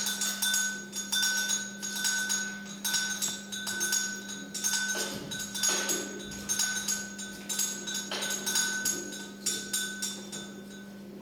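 Dry maize cobs and husks being handled and stripped by hand, giving irregular crackling, rustling and clicking, over a steady faint high tone and a low hum.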